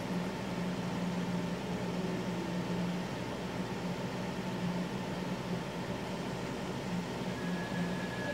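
Steady low hum under an even hiss, with no music or speech; a faint thin high tone comes in near the end.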